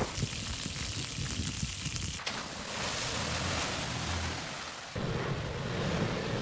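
Off-road trucks driving on a dirt and rock trail, with wind buffeting the microphone over the vehicle noise. The sound changes abruptly twice.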